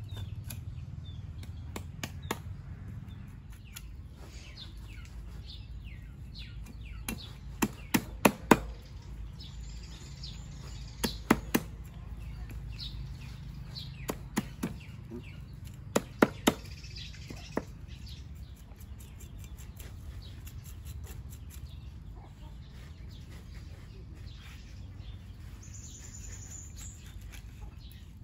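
Knife chopping on a cutting board in short bursts of three or four sharp strikes, with birds chirping faintly in the background.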